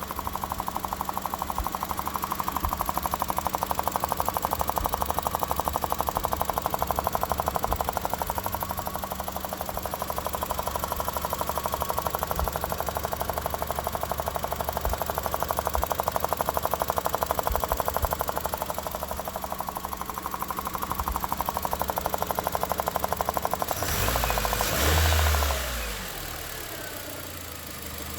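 Honda Civic EX 1.7-litre four-cylinder engine running with a fast, even knocking or popping, briefly revved about 24 seconds in and falling back. The noise was traced to a bad fuel injector O-ring.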